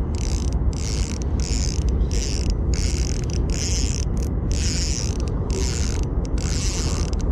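Spinning reel whirring in about ten short, rapid bursts while a springer is fought on light 10 lb line, over a steady low rumble.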